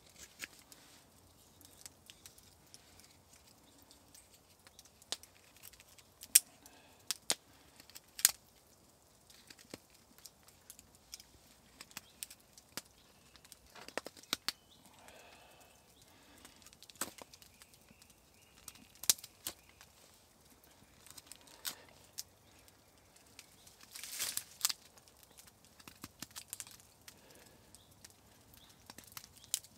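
Knife carving a pine stick: irregular sharp cuts and short scrapes as the blade bites into the wood and slices off shavings, a few strokes much louder than the rest.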